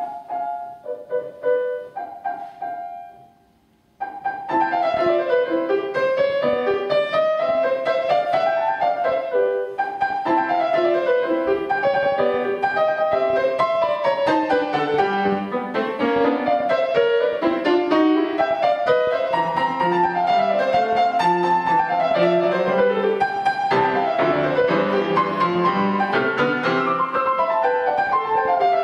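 Solo grand piano played live: a few soft notes die away almost to silence, then about four seconds in loud, fast playing with running figures starts and carries on without a break.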